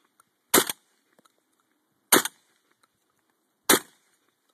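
Shotgun fired three times, about a second and a half apart, each a sharp blast that dies away quickly.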